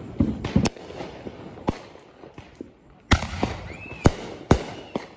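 Fireworks exploding overhead: a string of sharp bangs and pops, the loudest about three seconds in, with two more sharp reports a second or so later. A brief whistle rises and falls around four seconds in.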